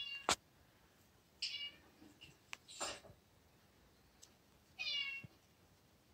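A cat meowing three times, short high meows: one right at the start, one about a second and a half in, and one about five seconds in. A few faint clicks and a brief rustle come in between.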